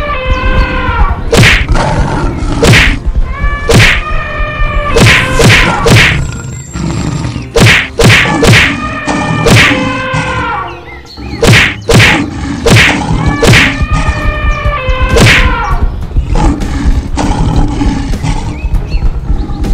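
Animated fight sound effects: repeated whacks and thumps, some in quick clusters, mixed with pitched animal calls that fall in pitch at their ends, over background music.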